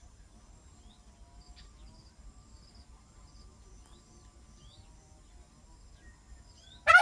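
Faint outdoor ambience of a steady high insect drone with scattered short bird chirps. Right at the end a turkey starts gobbling loudly.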